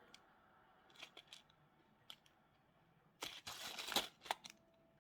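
Small plastic bags of metal track parts being handled: a few light clicks, then a short burst of plastic rustling about three seconds in, followed by a couple more clicks.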